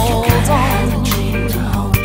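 Studio recording of an 80s-style pop song cover, with a steady bass line and drum hits. A singer's wavering held note fades out about half a second in.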